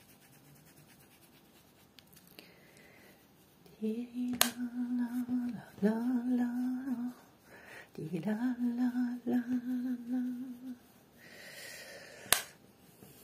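A woman humming a tune with her mouth closed, in two phrases of long held notes starting about four seconds in and again about eight seconds in. Two sharp clicks, one early in the humming and one near the end.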